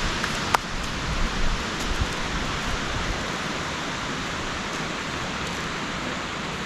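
Steady rushing wind noise, with one sharp click about half a second in.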